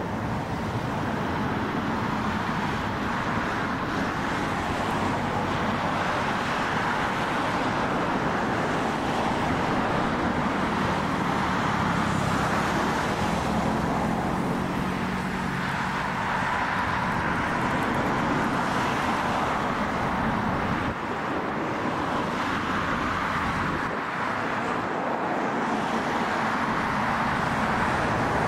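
Bell Boeing V-22 Osprey tiltrotor flying overhead: its two Rolls-Royce AE 1107C turboshaft engines and three-bladed proprotors give a steady rushing noise with a low hum that strengthens in the middle.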